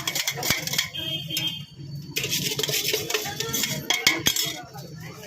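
Metal spoon clinking and scraping against a steel bowl in a run of quick strikes, some ringing briefly, typical of bhel being tossed and mixed.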